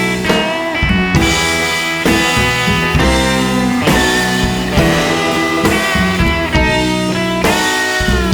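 Music with a steady beat: sustained pitched instrument notes over drums.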